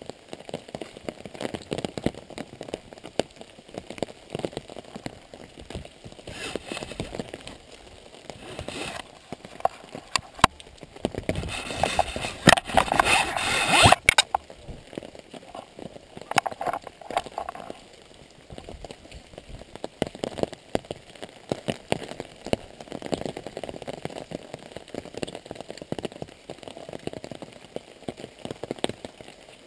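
Rain pattering: a dense, irregular patter of drops, with a louder stretch of about two seconds in the middle.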